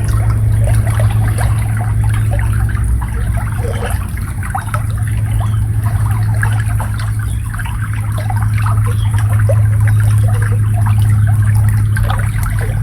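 Shallow flowing water trickling and babbling, over a steady low hum.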